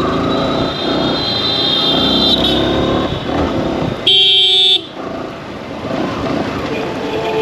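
Yamaha R15 single-cylinder motorcycle engine running amid street traffic, with a loud vehicle horn sounding for under a second about four seconds in.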